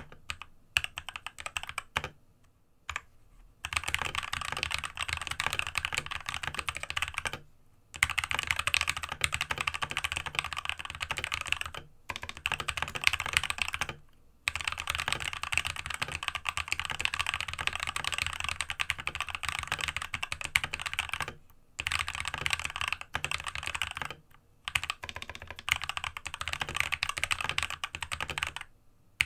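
Fast typing on a Monstargear MK308 optical mechanical keyboard with spray-lubed Gateron optical yellow linear switches, set on a deskmat: dense runs of keystrokes broken by short pauses every few seconds.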